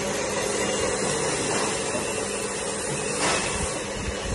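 Handheld laser welder at work on sheet steel: a steady hiss from the welding gun, with a brief louder rush about three seconds in.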